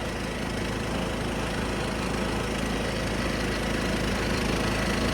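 1976 John Deere 300 lawn tractor running steadily under way, gradually getting a little louder; the driveline noise sounds to the owner like it might be low on transmission fluid.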